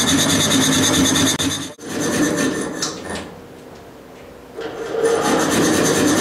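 Reciprocating air compressor pump running with a loud, rhythmic rasping clatter; it cuts out sharply for a moment a little under two seconds in, comes back, drops much quieter for about a second and a half in the middle, then runs at full level again.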